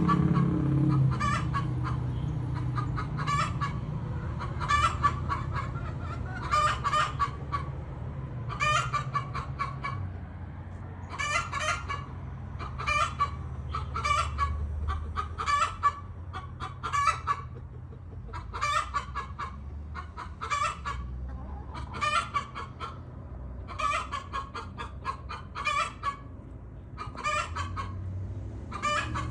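Hen clucking in short, rapid bursts, about one every one and a half to two seconds, over a low steady rumble.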